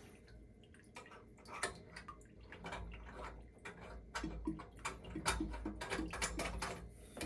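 Caps being screwed back onto the service ports of a tankless water heater's isolation valves: irregular small clicks and taps.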